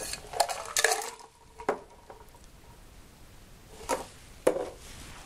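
Ice rattling inside a cocktail shaker, with the shaking ending about a second in, then a few separate clinks and knocks as the shaker is handled.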